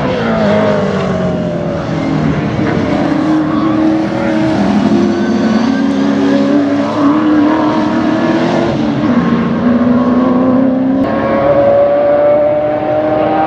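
Sports sedan race cars running hard on the circuit, engine notes rising and falling through gear changes; the first is a VK Commodore with a NASCAR V8. About eleven seconds in the sound changes abruptly to another engine climbing steadily in pitch under acceleration.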